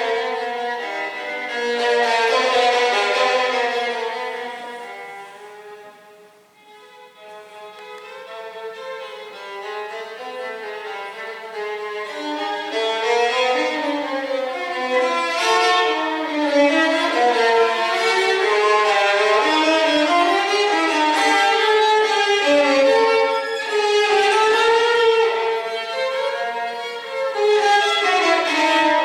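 Music led by a violin playing a melody, fading almost away about six seconds in and then swelling back.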